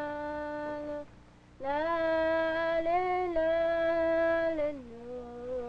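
A woman singing a slow lullaby in long held notes, breaking off briefly about a second in before a long note that steps up and then down in pitch.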